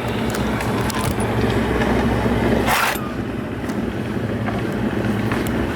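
A tire reamer tool being forced and twisted into a puncture in the tire tread, with scraping and clicks and one short loud rasp about three seconds in, over a steady low rumble.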